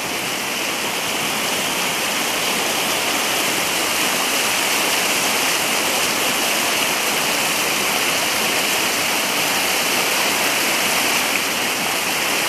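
Swollen river rushing over rocks in rapids: a steady, unbroken wash of white water.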